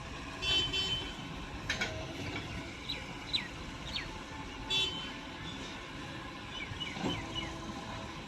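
A backhoe loader's diesel engine runs steadily, with several short high-pitched toots and quick falling chirps over it.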